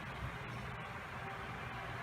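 Steady background hiss with a low hum, with no distinct event.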